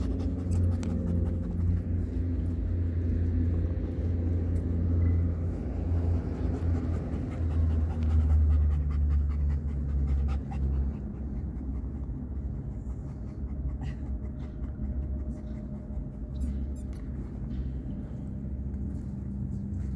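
Caucasian Ovcharka panting after a lot of exercise. A low rumble runs underneath and is strongest for the first ten seconds or so, then eases.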